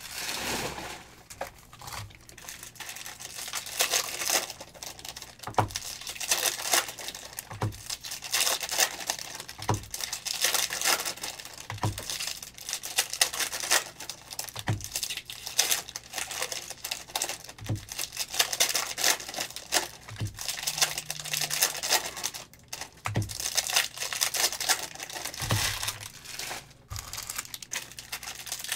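Foil wrappers of Panini Optic football card packs crinkling and tearing as packs are ripped open one after another, with soft knocks every two seconds or so.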